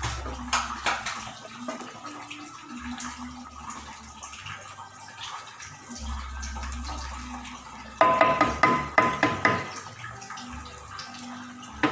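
Wooden spatula stirring chunks of pork and boiled eggs through thick soy braising liquid in a granite-coated pan, giving wet sloshing and light scraping. About eight seconds in comes a louder run of knocks and scrapes against the pan.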